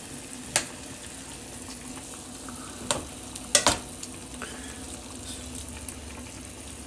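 A pan of chicken, potatoes and peppers in broth sizzling on a gas stove with a steady hiss. A metal spoon clinks against the pan a few times, loudest about three and a half seconds in.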